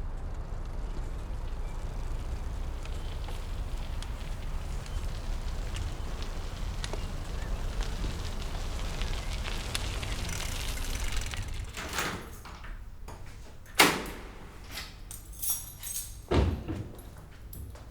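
A steady low rumble, then, about two-thirds of the way through, a few separate sharp knocks and thuds, the loudest one standing out clearly above the rest.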